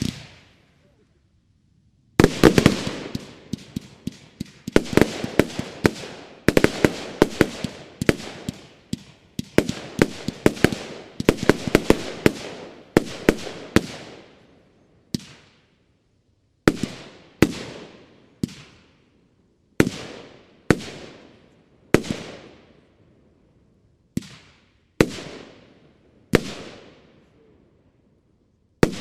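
Nordlicht 'Hand Gottes' firework battery (239 shots in 20, 25 and 30 mm calibres) firing: from about two seconds in, a dense rapid run of bangs, each echoing away. About halfway through this thins to single shots roughly a second apart, with a last one near the end.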